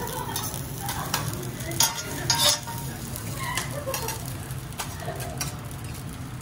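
Fried rice and egg sizzling on a teppanyaki steel griddle, with metal spatulas scraping and clacking against the plate. The loudest clacks come about two seconds in.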